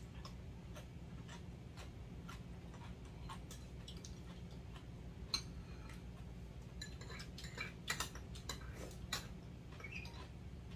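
Quiet eating sounds at a table: metal spoons and chopsticks tapping and clinking on bowls and plates, busiest in the second half. Under them run faint, even ticks about twice a second and a low hum.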